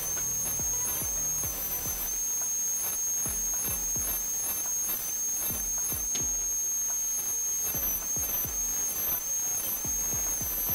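High-speed dental handpiece spinning a ball diamond bur, a steady high-pitched whine with a hiss, as the bur cuts depth grooves into a model front tooth.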